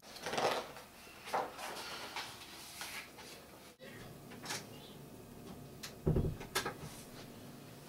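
A handful of separate soft clicks and knocks, with a duller low thump about six seconds in.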